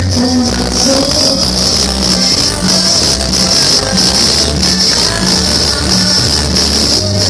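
Loud dance music played through a large sonidero sound system, with a heavy repeating bass beat and a steady high percussion pattern on top.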